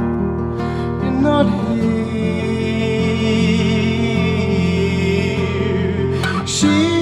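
Live song: a man singing softly into a microphone over acoustic guitar and sustained low tones. He holds a long note with a wavering vibrato in the middle.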